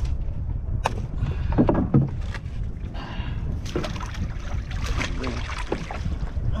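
A gill net being hauled by hand into a small wooden fishing boat, with a few sharp knocks against the hull, the first about a second in, over a steady low rumble of wind and water.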